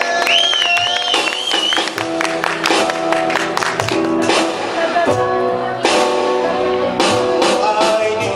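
Live band music: guitar chords over steady cajón hits, with a singer holding a wavering note in the first couple of seconds.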